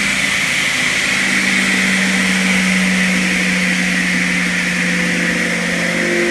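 Copco Porter hydraulic arm saw running: its 10 hp three-phase Baldor electric motor hums steadily under a high whine from the spinning 19.5-inch blade, the whine sagging slightly in pitch.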